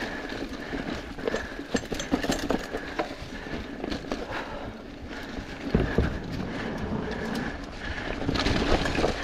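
Mountain bike rolling along a dirt trail covered in dry leaves: tyres crunching through leaf litter and the bike rattling and clicking over bumps and roots, with a heavy low thump about six seconds in.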